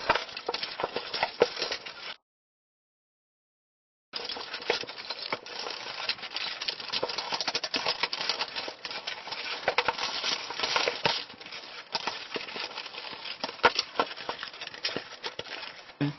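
Plastic ice blocks of a Don't Break the Ice game clattering and clicking against each other and the tray as they are pushed into place, a busy run of quick clacks. The sound drops out into total silence about two seconds in and resumes about two seconds later.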